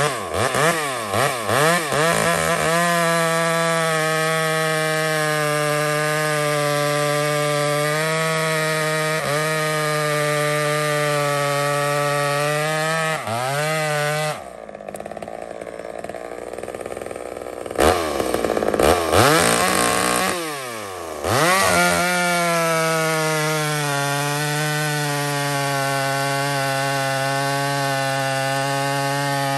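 An old Homelite two-stroke chainsaw, low on compression with only one piston ring, revved a few times and then held at full throttle as it cuts through a log. About halfway through it drops back for a few seconds and is revved up and down, then cuts steadily again.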